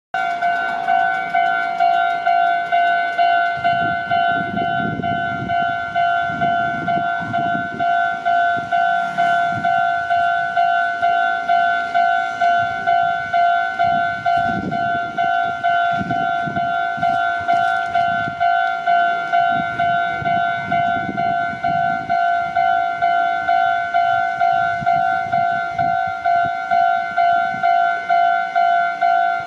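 Japanese railway level-crossing electronic warning bell sounding its steady two-tone "kan-kan", pulsing about twice a second. Low rumbling comes and goes underneath it.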